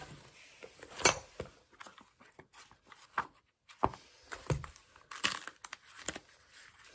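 Papers and old greeting cards being rifled through in a wooden box: paper rustling with scattered knocks and taps of handling, the sharpest knock about a second in.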